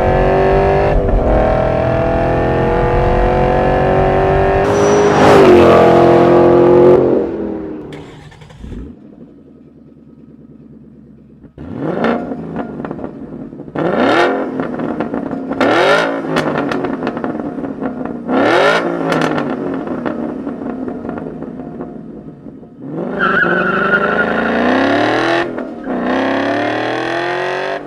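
Borla S-Type exhaust on a 2011–2014 Mustang GT's 5.0-litre V8. The engine pulls hard with its pitch climbing for several seconds, then drops away. After a lull come four quick revs, each rising sharply and falling back, and another hard pull near the end.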